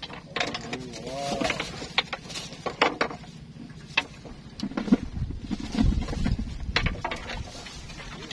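Scattered clicks and knocks of fishing gear being handled, with heavier low thuds around five to seven seconds in. A short pitched call rises and falls about a second in.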